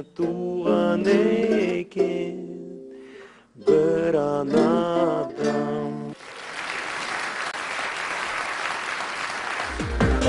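A man singing the closing lines of a Kazakh song to his own guitalele, two held phrases with a short break between, followed by a studio audience applauding for about four seconds. Right at the end a loud electronic jingle with a heavy beat cuts in.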